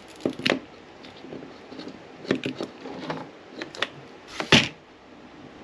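Hand wire cutters snipping and clicking on the trolling motor's red and black power leads, amid wire-handling noise: a string of sharp clicks, the loudest and longest about four and a half seconds in.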